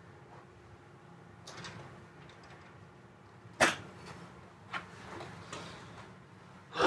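Metal-framed folding stool handled and set down on the floor: one sharp clack about three and a half seconds in, with a few lighter knocks around it.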